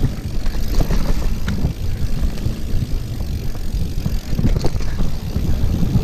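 Mountain bike riding fast down a dirt forest trail: a steady low rumble of tyres on dirt and wind buffeting the microphone, with scattered clicks and knocks.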